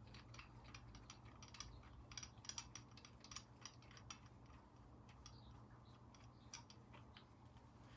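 Faint, irregular light metallic clicks and ticks as bolts are threaded by hand into the rocker assembly on a Puma 2.4 TDCi engine's cylinder head. The clicks are busiest in the first half and thin out later.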